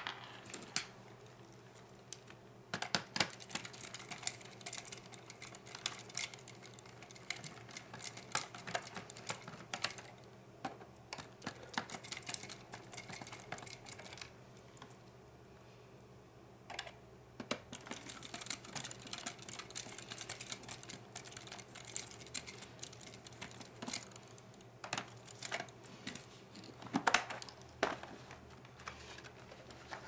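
Irregular small clicks, taps and light rattles of a screwdriver turning out screws and handling the plastic bottom case of a laptop.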